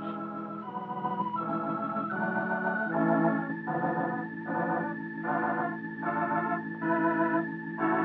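Background film music played on an organ: sustained chords under a slow melody line, with a new note about every half second to second.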